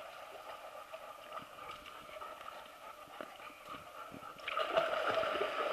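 A dog's paws sloshing and splashing through shallow pool water as it walks, growing louder about four and a half seconds in.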